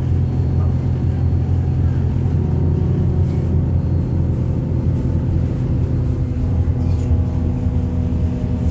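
Wright StreetLite DF single-deck bus's diesel engine running steadily under way, heard from inside the passenger saloon.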